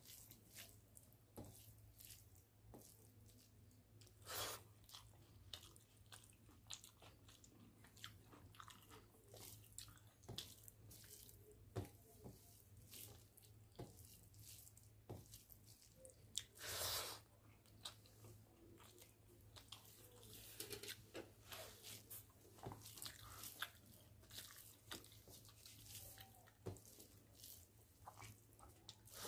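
Faint, irregular clicks and soft squishes of fingers mixing rice with fish curry on a steel plate, over a steady low hum. Two louder brief noises stand out, about four and seventeen seconds in.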